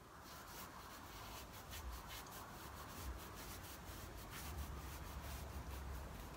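Hands rubbing and pressing a strip of leather down onto a board coated with contact adhesive: a faint, steady rubbing and scuffing.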